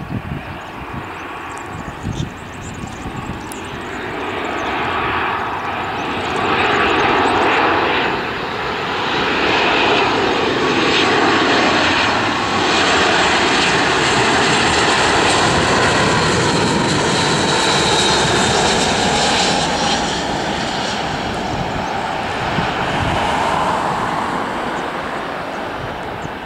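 Airbus A321 airliner's jet engines on final approach, the noise building over the first several seconds, staying loud through the middle with a whine running through it, then easing off toward the end as the jet passes and descends to the runway.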